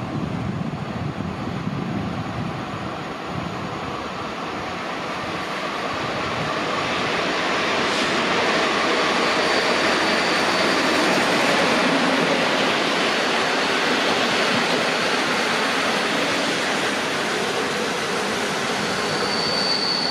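EU07 electric locomotive hauling a passenger train, approaching and passing: a steady rushing rumble of wheels on rail that grows louder from about a third of the way in. A thin high squeal joins about halfway and grows stronger near the end.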